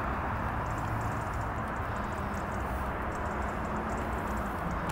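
Steady rushing noise with a low, steady hum beneath it.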